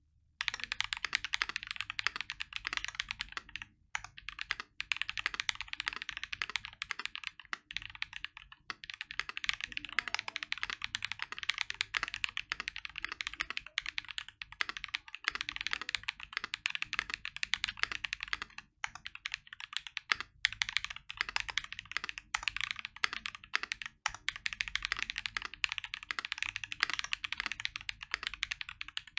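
Fast, continuous typing on a custom mechanical keyboard with lubed Strawberry Milk tactile switches, a brass plate and foam-dampened case, with a few brief pauses.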